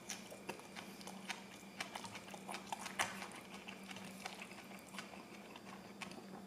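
Faint, irregular soft clicks of a person chewing a mouthful of pad thai noodles with the mouth closed, and of wooden chopsticks picking noodles from the plate. A faint steady low hum runs underneath.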